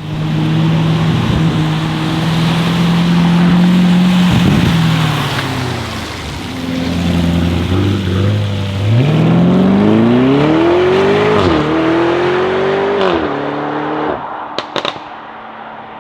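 Lamborghini Urus Performante's twin-turbo V8 through its Akrapovic exhaust: a steady engine note at first, then a hard acceleration about nine seconds in, the pitch rising with a brief drop at a gear shift before the sound falls away. A couple of sharp pops come near the end.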